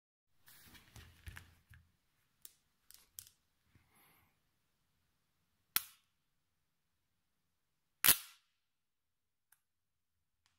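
10 mm neodymium magnet balls clicking and rattling against each other in the first few seconds, then two sharp clacks as magnetised parts of the ball sculpture snap together, the second, about eight seconds in, the loudest, with a brief ring.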